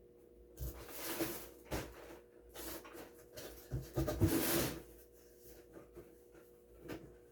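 Rustling and light clatter of packaged Hot Wheels cars, on blister cards, being handled and shuffled. The handling comes in irregular bursts, the longest and loudest a little past the middle.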